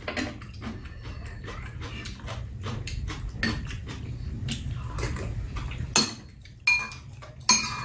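Metal spoons and chopsticks clinking and scraping against bowls and a stainless tray during a meal, in quick irregular clicks, with a few sharper, louder clinks in the last two seconds.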